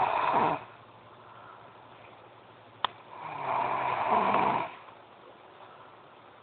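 A girl snoring loudly. One snore dies away in the first half second, and a full snore of about a second and a half comes midway. Just before it there is a single sharp click.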